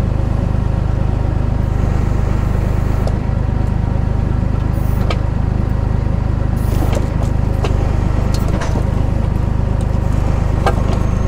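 Tractor engine running steadily at low revs, driving the hydraulic pump of a timber trailer's log crane as the crane is worked on its joystick valve levers. A steady drone with a few sharp clicks and knocks from the crane and controls.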